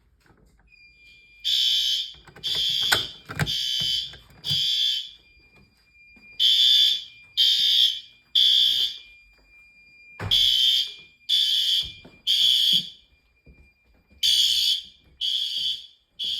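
Fire alarm horn/strobes on a Fire-Lite MS-2 system sounding loud, high-pitched blasts in the temporal-3 evacuation pattern, mostly three blasts then a pause, starting about a second and a half in. The horns are System Sensor L-series and SpectrAlert Advance units. A thin steady high tone runs beneath the blasts throughout.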